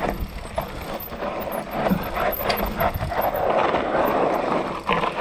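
Mountain bike riding down a rough dirt trail: tyres grinding over dirt and loose ground, with frequent clattering knocks from the bike over bumps.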